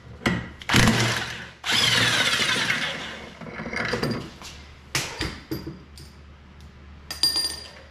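Half-inch electric impact wrench with a 19 mm socket run in two bursts, a short one about a second in and a longer one of about a second and a half, undoing the snowmobile's clutch bolt. Its pitch falls away at the end of the second burst. A few tool knocks and clanks follow.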